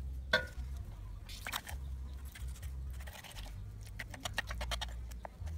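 Kitchen knife scraping and cutting raw fish flesh on a wooden cutting board: a sharp knock about a third of a second in, then scratchy scrapes and a quick run of ticks near the end, over a steady low rumble.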